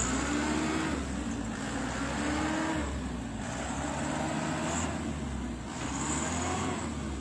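Dump truck's diesel engine revving up and falling back several times over a steady low rumble.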